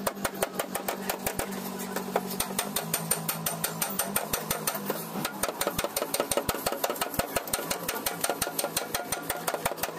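Flat hand file worked rapidly over body filler on a car's steel front fender, a steady run of short scraping strokes, several a second.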